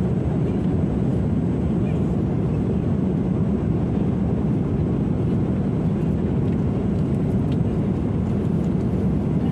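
Steady low rumble of airliner cabin noise from an Airbus A330-300 in cruise flight: engine and airflow noise heard from a passenger seat inside the cabin.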